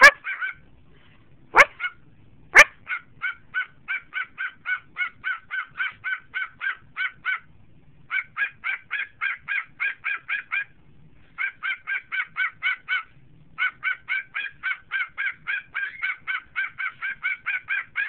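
Whiteface cockatiel giving a long series of short, bark-like calls, about four a second, in runs of a few seconds broken by brief pauses. Two sharp, louder sounds come about two seconds in.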